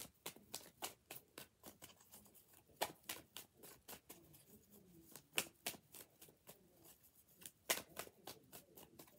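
Tarot cards being shuffled and handled: a run of light, irregular card clicks and flicks, with a few sharper snaps about three, five and a half and seven and a half seconds in.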